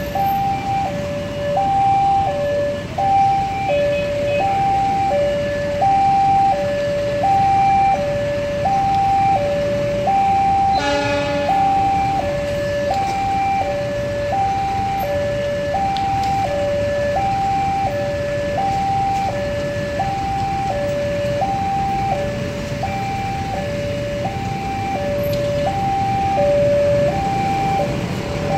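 Indonesian railway level-crossing alarm sounding, an electronic two-tone 'teng-tong' alternating high and low about once a second, the warning that a train is coming and the gates are closed. A brief horn sounds once, about eleven seconds in, over the steady traffic hum.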